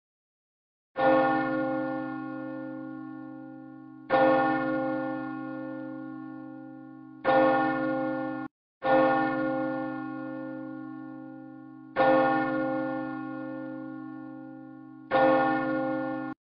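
A single church bell struck six times, about three seconds apart, each stroke ringing out and fading. The third stroke cuts off abruptly just before the fourth.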